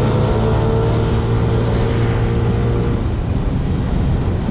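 Yamaha NMAX scooter engine running steadily while riding, with wind and road noise on the microphone.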